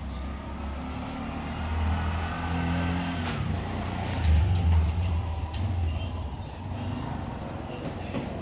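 A motor vehicle's engine hum, growing louder over the first couple of seconds, loudest about four to five seconds in, then easing off.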